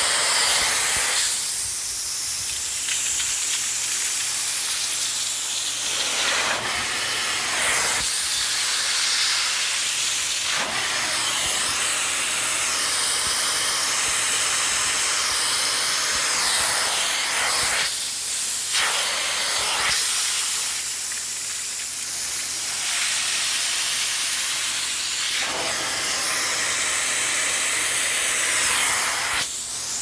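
Upholstery steam cleaner's hand tool working over a chair's fabric: a steady loud hiss over the machine's low motor hum. The hiss fills out and thins again in stretches of a few seconds as the tool works.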